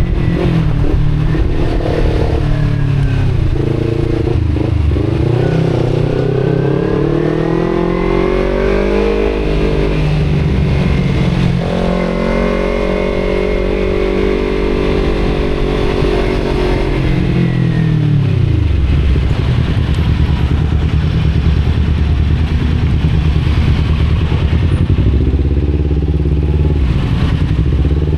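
Kawasaki Z250 motorcycle engine through an aftermarket Akrapovic exhaust, heard from on the bike while riding, its revs rising and falling. It holds a higher steady pitch in the middle, drops to a low, steady rumble about 18 seconds in, and begins climbing again near the end.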